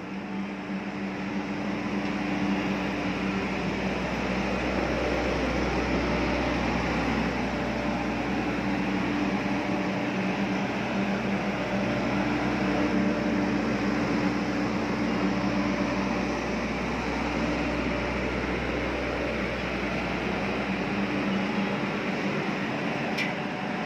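ULISE silent diesel generator running in its soundproof canopy, warming up after a cold start: a steady hum with a few held tones.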